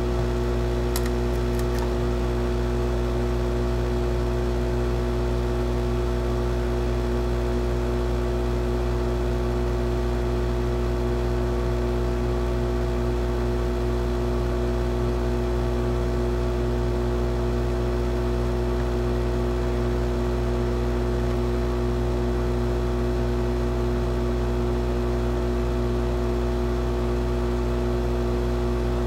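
Hot air handpiece of a Kendal 852D+ rework station blowing steadily, its fan giving a constant whir with a steady hum, while heating a surface-mount chip to melt its solder.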